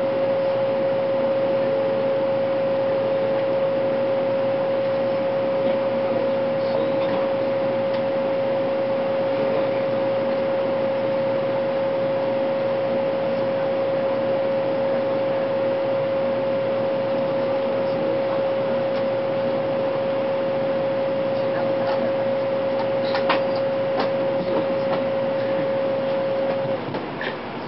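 Interior of an N700 series Shinkansen car: steady running noise with a single held tone on top, which stops shortly before the end, and a few sharp clicks near the end.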